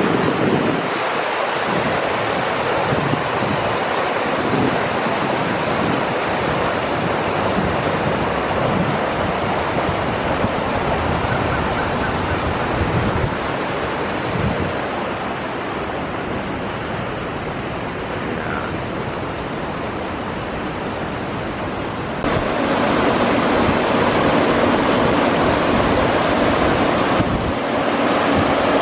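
Strong wind gusting and buffeting the microphone over a steady rushing roar; about 22 seconds in the sound jumps abruptly louder and brighter.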